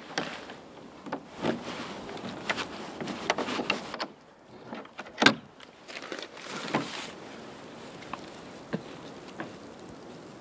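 Keys and a metal padlock rattling and clicking at a wooden shed door, with a sharp clack about five seconds in. Then a hatch in a wooden floor is handled and lifted, followed by three light, evenly spaced footsteps.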